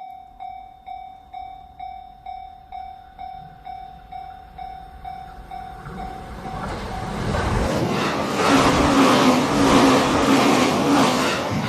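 Japanese level-crossing warning bell dinging about twice a second, then an E259 series Narita Express rushing through at speed, its growing rumble drowning out the bell from about halfway on.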